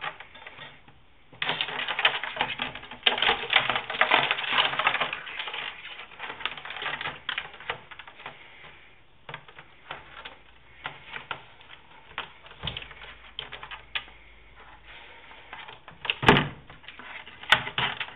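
Rapid rattling clicks as a live land crab's legs and claws scrabble against a plastic crate while it is grabbed, busiest in the first half, then sparser, with a couple of sharper knocks near the end.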